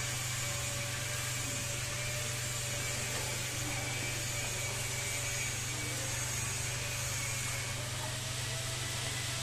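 Steady whirring hiss over a constant low hum.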